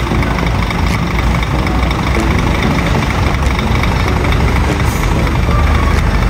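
Diesel engine of a bare Scania bus chassis, exposed at the rear, running low and steady in traffic, getting slightly louder toward the end.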